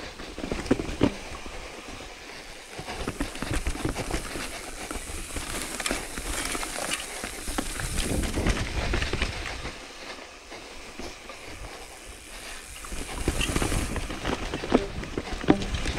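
Mountain bike rolling down a rough trail: tyres crunching over stones and the bike rattling, with wind buffeting the microphone. It quietens for a few seconds past the middle, then picks up again near the end.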